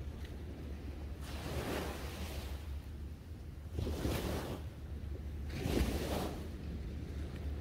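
Small waves breaking on a sandy beach, three washes of surf swelling and fading in turn, over a steady low rumble of wind on the microphone.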